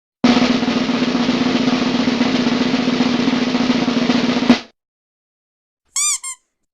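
Snare drum roll sound effect, a fast steady roll of about four seconds that ends on a sharp hit. About a second and a half later come two short, quick chirps that bend in pitch.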